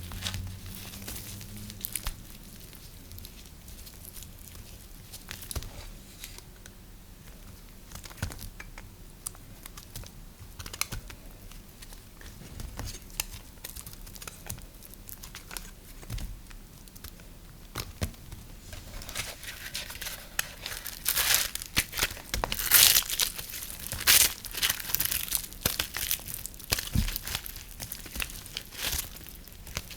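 Knife cutting through dry, brittle soap: scattered small crackles at first, then from about two-thirds of the way through a dense run of louder crunching and crackling strokes.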